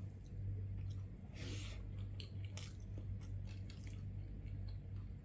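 Close-up chewing and mouth sounds of someone eating a mouthful of fried kingfish and rice: wet smacks and small clicks at irregular intervals over a steady low hum.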